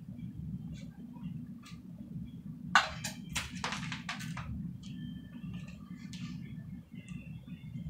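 Kitchen handling noises from filling burritos: filling scooped out of a pan onto tortillas in a foil tray, with scattered clicks, a sharp knock about three seconds in and a second or so of rustling after it. A steady low hum runs underneath.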